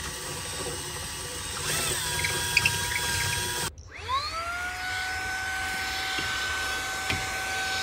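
Cordless drill running as it bores into a panel for about three and a half seconds. After an abrupt break, a vacuum cleaner starts up, its whine rising quickly and then holding steady.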